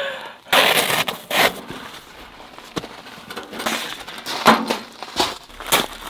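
Kolon Sport Budumak wood-burning stove being lifted out of its padded carry bag and carried: rustling of the bag, clinks and knocks of the metal stove, and crunching steps on gravel.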